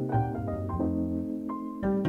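Background instrumental music, a gentle melody of pitched notes over sustained lower tones, with new notes coming in about every half second.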